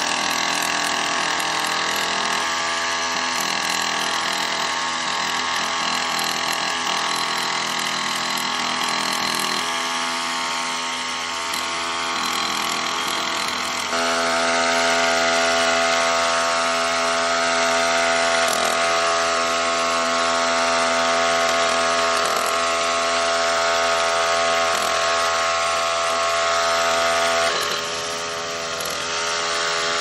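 Small gas engine of a backpack power sprayer running steadily while sealer is sprayed. It gets louder about halfway through and dips briefly near the end.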